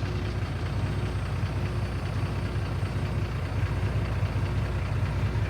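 Semi truck's diesel engine idling steadily while it warms up.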